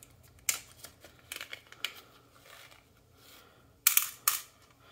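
Tiny screws handled and set down on a small digital scale's metal weighing pan: a scatter of light clicks and taps, then two sharper clicks about four seconds in.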